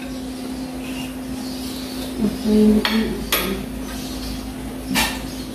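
Metal spoon clinking against a ceramic bowl while serving pork steak: a few sharp clinks about three and five seconds in, over a steady low hum. A brief low tonal sound, the loudest thing, comes just before the first clinks.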